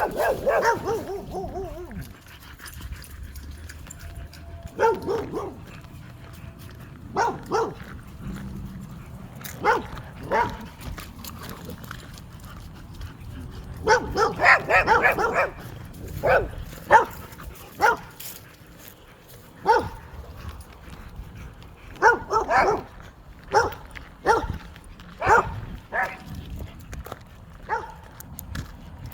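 Dogs barking in short, irregular bursts, a single bark or a quick run of several at a time, with gaps of a second or more between; the first call near the start slides down in pitch.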